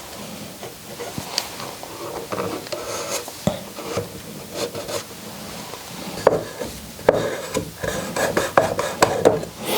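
Wooden pieces being handled, set down and slid into place: irregular light knocks of wood on wood with scraping, busier in the last few seconds.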